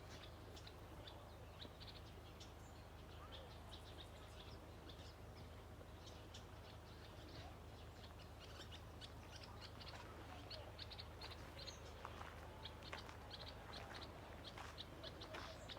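Faint birdsong: many short, high chirps from small birds, getting busier in the second half.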